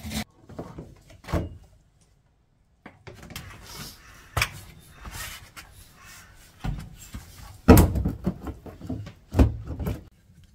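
Irregular knocks, scrapes and clatters of a plastic vent cover being handled and pressed into a hole in a corrugated metal wall, the loudest knocks near the end.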